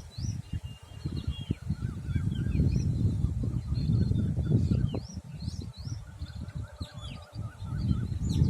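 Birds chirping and calling over and over, short rising and falling notes, over a loud, uneven low rumble.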